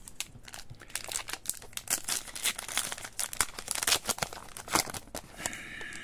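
A Panini Adrenalyn XL trading-card pack wrapper being torn open and crinkled by hand, a dense run of crackles that thins out after about five seconds.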